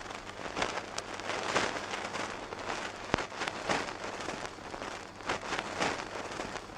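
Surface noise of a sound-effects record playing on a turntable: continuous crackle and hiss with scattered clicks and one sharp pop about three seconds in, over a steady low hum.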